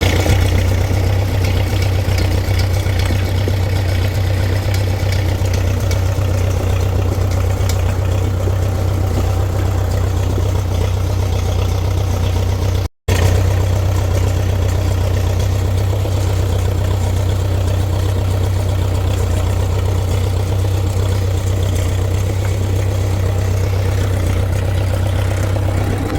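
Engine of an old Case 580CK backhoe running steadily, with a strong, unchanging low hum. The sound cuts out for a split second about halfway through.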